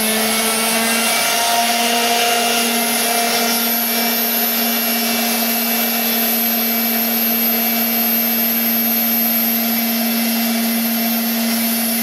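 Chicago Power Tools flex shaft grinder running at a steady speed, its diamond-coated bit drilling straight down into glass under water: an even whine with several steady tones.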